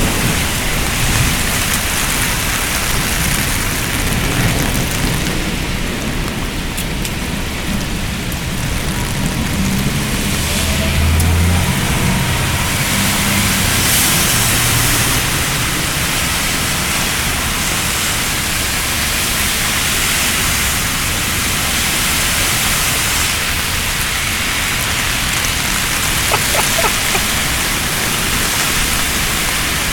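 Steady rushing hiss of water during a flood, with some low rumbling for a few seconds about ten seconds in.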